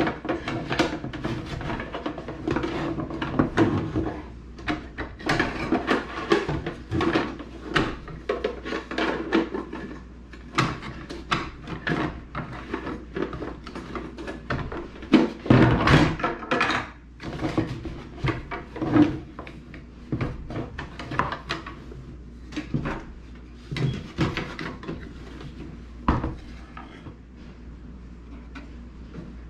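Irregular clicks, knocks and rattles of plastic refrigerator ice-maker parts being handled and fitted back together, busiest in the middle and thinning out near the end.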